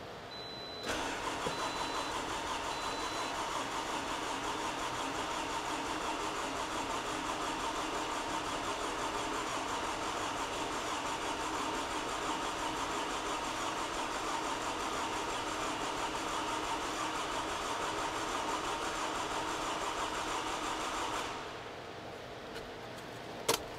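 Starter motor cranking a freshly rebuilt Toyota 2AZ-FE 2.4-litre four-cylinder engine over without it firing: the crank position sensor is unplugged so the engine only turns to prime the oil system, until the oil pressure light goes out. The cranking starts about a second in and stops after about twenty seconds, and a short click follows near the end.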